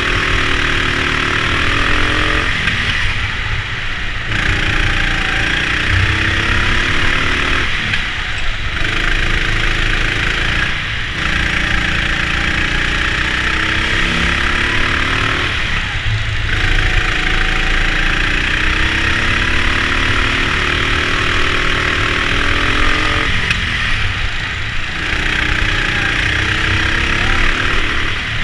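Go-kart engine running under racing throttle, its pitch climbing for several seconds at a time and then falling away as it slows, about five times over, with a steady hiss behind it.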